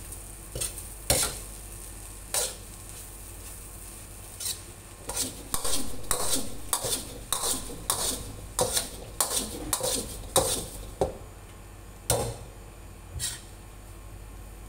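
Metal wok ladle scraping and clanking against a wok while stir-frying fried rice, over a low steady hiss. A few separate strikes at first, then a quick run of scrapes from about five to eleven seconds in, then two more near the end.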